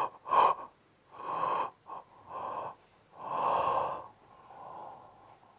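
A man yawning and breathing out in a series of about five breathy gasps and exhales, the longest a little after three seconds in, a softer one near the end. It is a demonstration of pent-up energy leaving the body as yawns.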